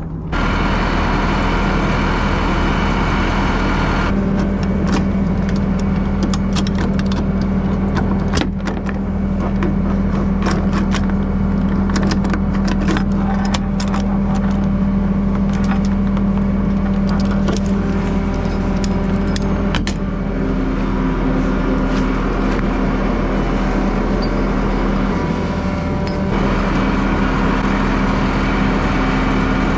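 Flatbed tow truck's engine running steadily at idle, with a long run of sharp metallic clicks and clatter from the wheel straps' ratchets and hooks being released, mostly in the first two-thirds.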